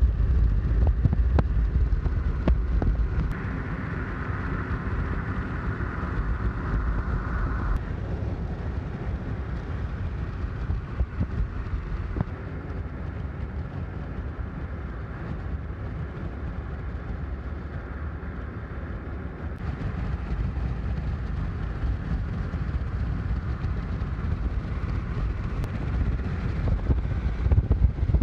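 Toyota Yaris on the move: a steady low rumble of road and wind noise.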